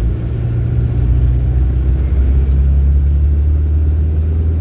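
Diesel engine of a moving vehicle droning at low pitch, its note shifting about a second in and again a little past two seconds.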